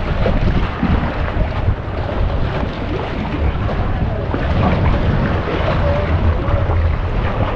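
Wind buffeting the camera microphone with a steady low rumble, over faint background voices.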